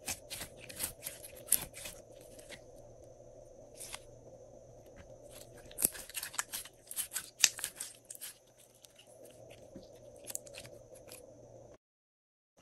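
Clear glossy slime squeezed and folded by hand, making clusters of sharp sticky clicks and pops as trapped air bursts, thickest about six to eight seconds in. The sound cuts out abruptly near the end.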